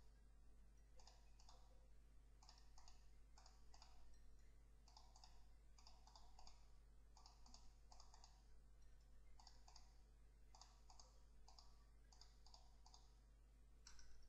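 Faint clicking of computer keyboard keys and mouse buttons, short irregular clicks often in quick pairs, a few a second, over a low steady hum.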